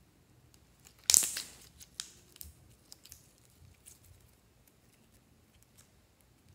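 Glitter slime being squeezed and pulled apart by hand: a loud crackling, tearing burst about a second in, then a few small sticky pops and clicks.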